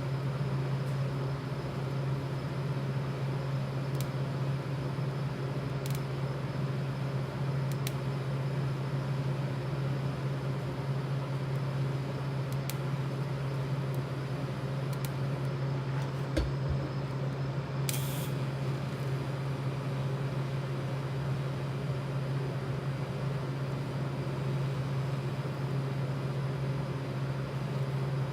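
A steady low machine hum over an even hiss, with a few faint clicks, a short knock about sixteen seconds in and a brief sharp hiss about two seconds later.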